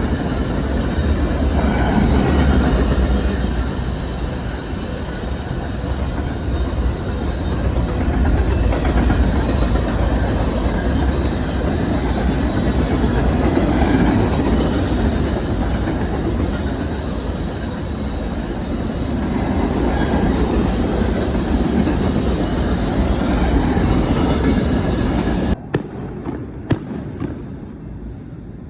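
A train passing close by: a heavy rumble with wheels clattering over the rails, swelling and easing. About 25 seconds in it cuts off abruptly to a much quieter background with a few sharp clicks.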